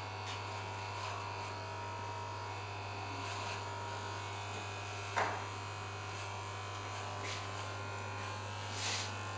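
Corded electric hair clippers running with a steady buzz as they cut hair. A brief, louder sound breaks in once about five seconds in.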